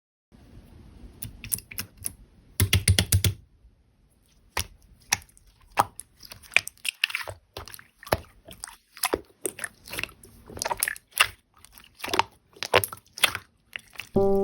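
Keyboard typing: irregular sharp key clicks, with a quick run of louder keystrokes about three seconds in.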